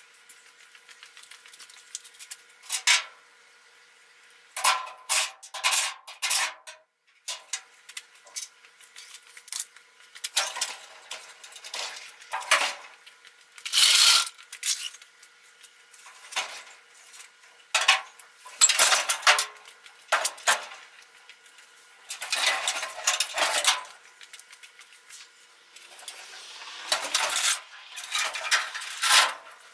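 Irregular metallic clanking, rattling and scraping in short bursts, as the steel bed of a 1964 Chevy pickup is worked loose and tipped up off its frame.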